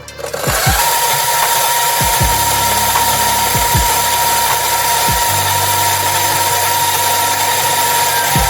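Gevi GrindMaster electric coffee grinder with 64 mm flat burrs switching on and running, grinding coffee for espresso. It gives a loud, steady whirr with a constant whine.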